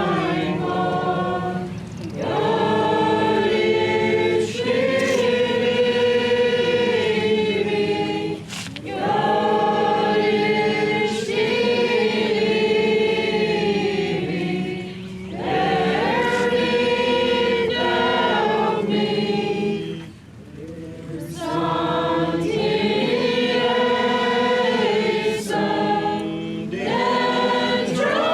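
A group of voices singing together, a choir-style hymn in long held notes, in phrases of about five to seven seconds with short breaks between them.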